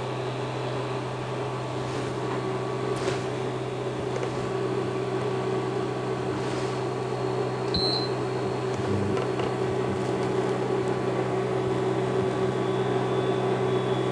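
Steady hum of a portable electric hob with its fan running while it heats a pan, with a few light knocks and a short high beep about 8 seconds in.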